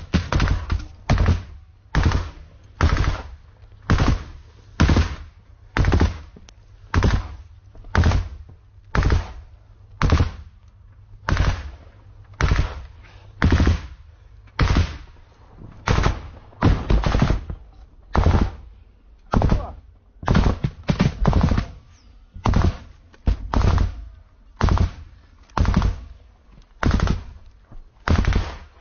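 Rifle fired at close range in single shots at a steady pace of about one a second, some coming in quick pairs.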